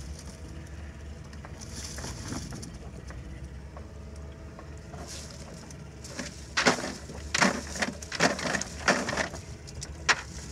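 A cast net full of shrimp shaken out over a plastic bucket and basket. From about six seconds in, the net, its weights and the shrimp knock and clatter against the bucket in a quick run of sharp hits, over a steady low hum.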